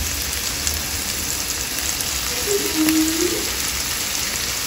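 Masala-marinated fish fillets sizzling steadily in a little oil in a nonstick frying pan, with scattered small pops of spitting oil.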